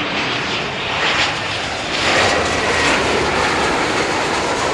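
Jet airliner flying low overhead on its landing approach, its engines rumbling and hissing, growing loudest about halfway through with a faint high whine.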